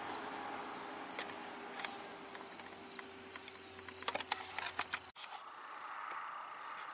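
A cricket chirping in a steady, high, fast-pulsed trill. A few sharp clicks come about four seconds in, and just after five seconds the sound cuts out for an instant and resumes fainter.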